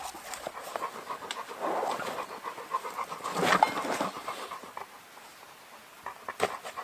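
A dog panting close to the microphone, louder at first and quieter after a few seconds, with a few light clicks near the end.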